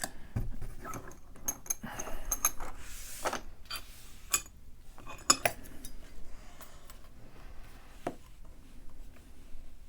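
Scattered metallic clicks and clinks from handling a just-opened padlock core and its picking tools, busiest in the first half and thinning out after.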